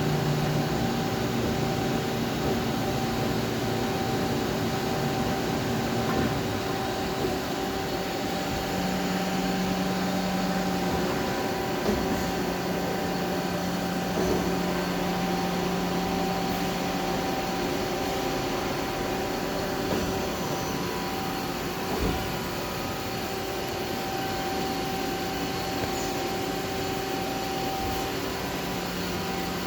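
CNC turning center running: a steady machine hum with several held motor tones, some of which step to a new pitch now and then, and a few light clicks.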